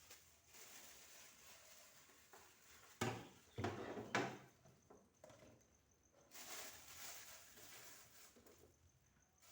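A few light knocks and clatters of refrigerator fittings being handled, about three to four seconds in, against otherwise near-quiet surroundings.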